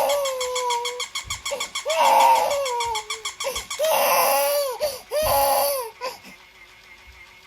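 Six-month-old baby crying in four loud wailing bouts that die away about six seconds in, upset by a toy dog's barking.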